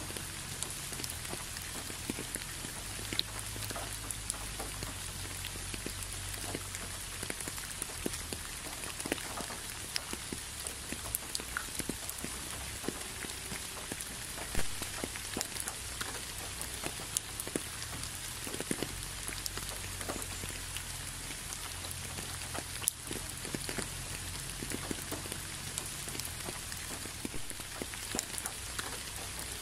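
Steady rain falling, many separate drops ticking sharply over an even hiss, with a faint low rumble that comes and goes underneath.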